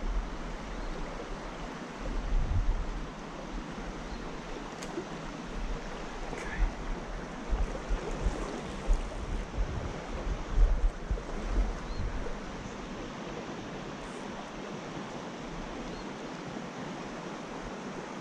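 Shallow mountain trout creek running over a rocky bed in riffles, a steady rushing hiss, with low buffeting of wind on the microphone now and then.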